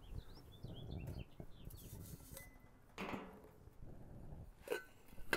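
A drink can and a stainless steel can cooler being handled: a few light metallic clinks and rustling, with birds chirping faintly in the first second or so.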